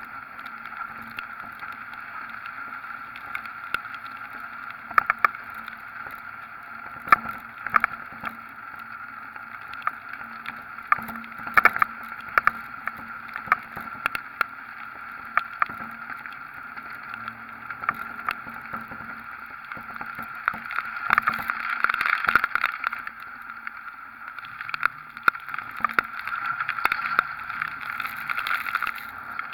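Hurricane wind and rain rushing over a camera mounted outside a moving Dodge Ram pickup, with irregular sharp taps of raindrops striking the camera and water spraying up from the flooded road. The rush swells about two-thirds of the way in and again near the end.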